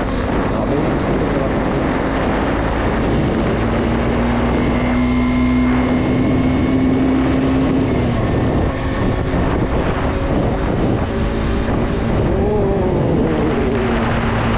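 A KTM 125 single-cylinder motorcycle engine running on the move, with wind noise on the microphone. The engine note holds steady for a few seconds, then its pitch changes about eight seconds in and wavers again near the end as the throttle and gears change.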